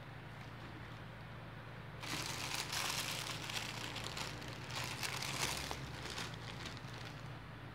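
Thin plastic bags crinkling and rustling as hands rummage in a white plastic carrier bag and handle small clear plastic packets. The crinkling starts about two seconds in, lasts a few seconds, and fades near the end.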